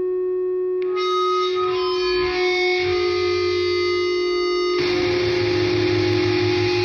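Instrumental music: held notes over a steady drone, which turns fuller and noisier with a low pulse about five seconds in.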